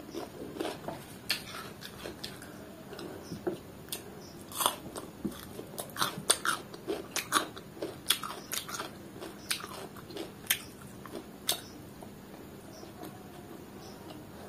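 Close-miked eating sounds of someone chewing curry, rice and roti: wet chewing with many sharp, irregular mouth clicks, which thin out after about eleven seconds.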